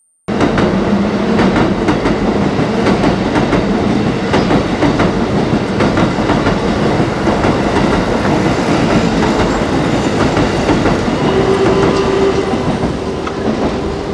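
Train passing directly overhead on tracks above the ceiling: a loud, dense clatter of wheels on rails that starts suddenly, with a steady whining tone joining about eleven seconds in.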